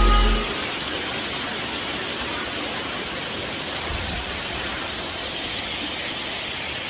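Creek waterfall rushing steadily, a constant even hiss of falling water.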